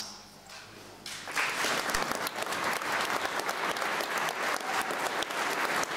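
Audience applauding. A brief hush, then the clapping starts about a second in and keeps going steadily.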